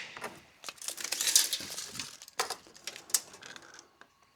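Irregular light clicks, scrapes and rustles of a tape measure and timber trim being handled during measuring, with a couple of sharper clicks about a second and a half and three seconds in.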